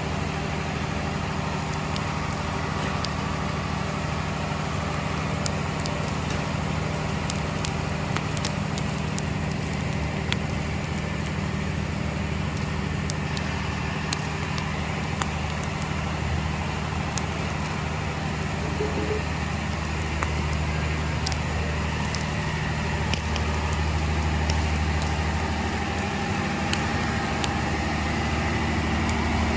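Open wood fire crackling, with scattered sharp pops, over a steady low engine-like hum that is the loudest sound.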